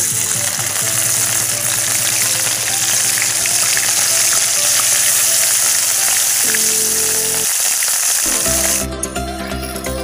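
Small snails in their shells frying in hot oil in a steel wok. A loud, steady sizzle with small crackles starts suddenly and cuts off near the end.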